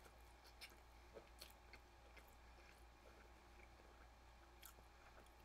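Faint chewing of a mouthful of Sicilian pizza: scattered soft mouth clicks, a few a second, over a low steady hum.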